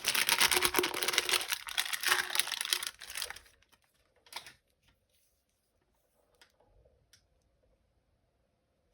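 Packaging being crinkled and torn open by hand for about three and a half seconds, then one short crinkle, then a few faint clicks.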